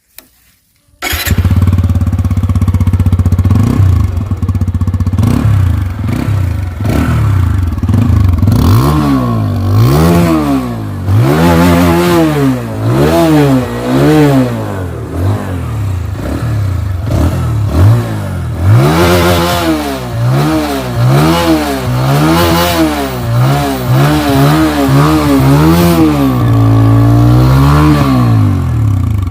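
TVS Apache RTR 160 2V BS6 motorcycle's single-cylinder engine and exhaust: it comes in about a second in running at a steady idle, then from about nine seconds it is revved again and again, with the pitch rising and falling with each throttle blip.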